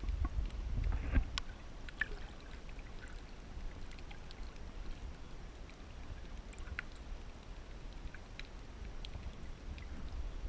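Water noise: a steady low rumble with scattered small clicks and ticks.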